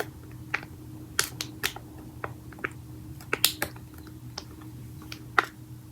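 Fingernails tapping and clicking on the slime's packaging: a dozen or so sharp, irregular taps.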